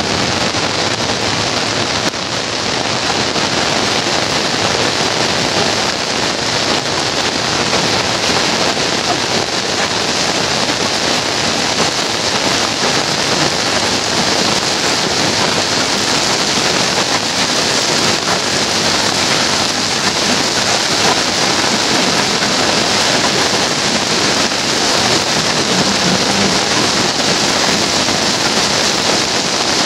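Heavy rain falling steadily on the ground, roofs and puddles, a dense even noise without a break.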